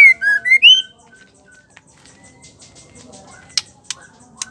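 Female white-rumped shama (murai batu) singing a short phrase of loud, clear whistled notes that glide down and then up, lasting about a second. A few sharp ticks follow near the end.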